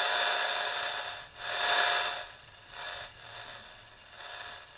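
Hiss from an RX2 antenna noise bridge heard through a shortwave receiver tuned to 10 MHz, rising and falling in waves as the reactance dial is turned and fading away toward the end. The fading hiss is the bridge coming to its null as it balances against an 82 pF capacitor on its unknown port.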